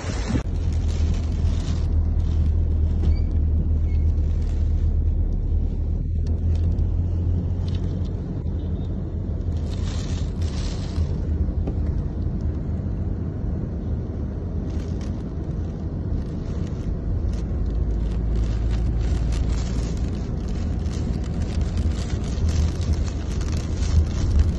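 Gale-force cyclone wind buffeting the phone's microphone as a steady low rumble, with stronger gusts now and then.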